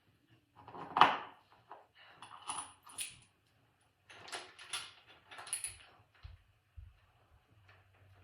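Metal BMX parts clinking and rattling as handlebars are fitted to the stem: a sharp knock about a second in, then two spells of light metallic jangling.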